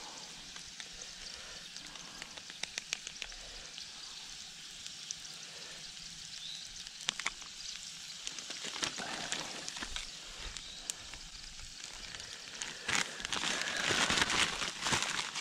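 Sliced potatoes and onions frying in a cast iron pan over a small wood stove: a steady sizzle with scattered small pops and ticks. Near the end a plastic zip bag crinkles loudly as it is handled.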